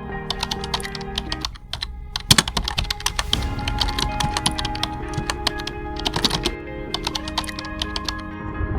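Rapid, irregular keyboard-typing clicks over background music with held notes. The clicks come in quick runs with short gaps, the busiest stretch a little past two seconds in.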